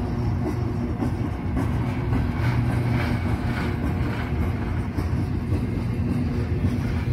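Norfolk Southern intermodal freight train's well cars rolling past, a steady low rumble of steel wheels on the rails.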